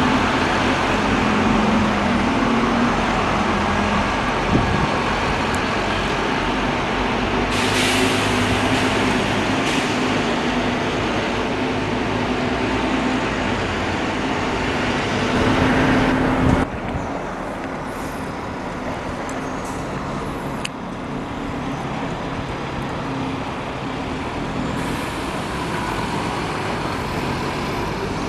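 Diesel double-decker buses running as they pull away, with a short hiss of air brakes. About halfway through the sound drops suddenly to a quieter, more distant bus engine hum.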